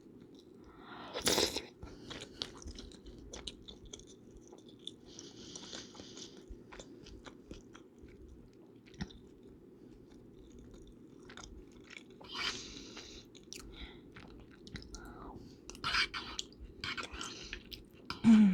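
Close-up chewing and wet mouth sounds of someone eating, with small clicks and a few louder bursts, over a steady low hum.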